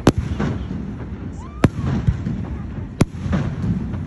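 Aerial fireworks shells bursting: three sharp bangs about a second and a half apart, over a steady low rumble.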